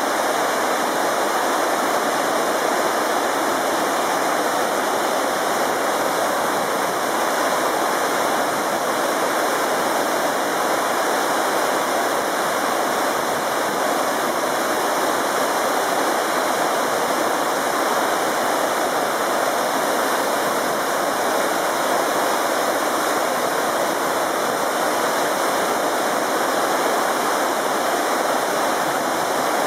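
Chenuis Falls pouring close by: a steady, unbroken rush of falling and splashing water.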